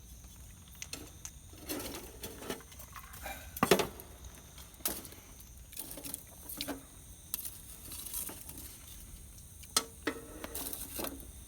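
Scattered clicks and knocks of tableware and utensils being handled while eating, the sharpest a little under four seconds in and another near ten seconds.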